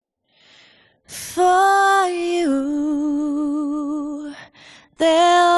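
A solo female voice singing unaccompanied, a cappella: a soft breath, then long held notes with vibrato, the first stepping down to a lower held note, a short gap, and a new note starting near the end.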